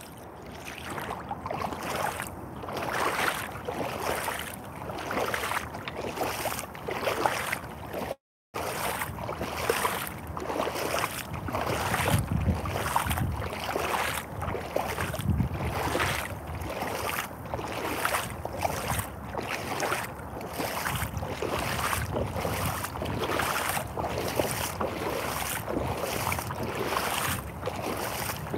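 Irish Setter rubber boots wading through shallow muddy water, splashing and sloshing with each step in a steady rhythm of about two steps a second. The sound drops out briefly about eight seconds in.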